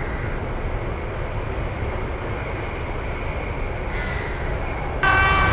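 Steady low rumble of road traffic. About five seconds in it jumps louder as an approaching diesel-hauled commuter train sounds a held horn note.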